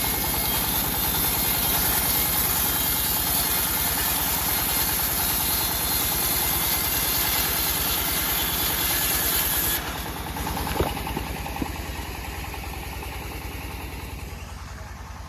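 Engine of a home-built bandsaw mill running steadily with a high hiss over it; the hiss cuts off suddenly about ten seconds in, two short knocks follow, and the engine sound then grows quieter.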